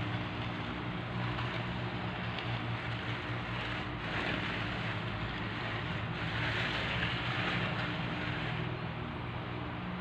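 A steady motor hum with a hiss over it that swells twice, about four and seven seconds in.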